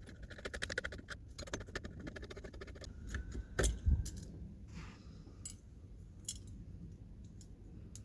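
Small metal parts and hand tools clinking and clicking as they are handled, with a louder dull thump about four seconds in.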